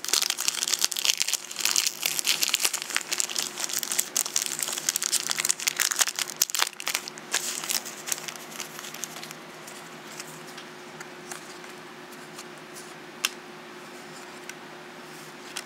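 Foil trading-card booster pack wrapper crinkling and tearing open, dense crackling for about nine seconds, then quieter with a few faint clicks as the cards are handled.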